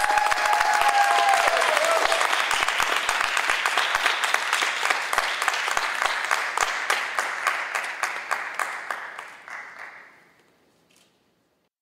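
Audience applauding, with a few cheering voices near the start; the clapping thins out and fades away about ten seconds in.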